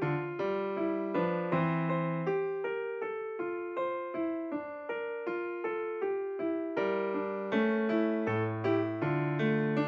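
Background piano music: a gentle melody of single struck notes that ring and fade, played at an even, unhurried pace.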